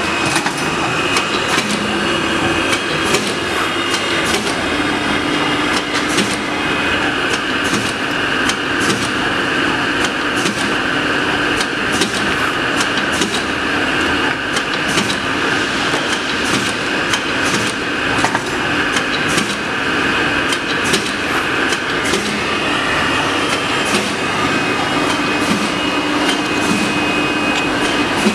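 Automatic roll-to-roll CCD-positioning hole punching machine running: a steady mechanical whine with frequent sharp clicks and knocks at uneven intervals.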